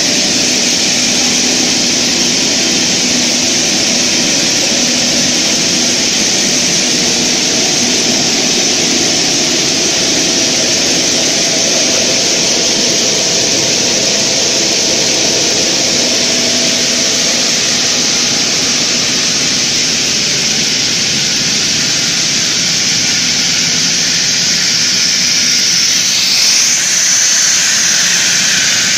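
Steel wire drawing machine running at speed: a loud, steady whirring hiss from its spinning capstan drums and pulleys as the wire is drawn through, with a faint steady hum beneath and a brief sweep in pitch near the end.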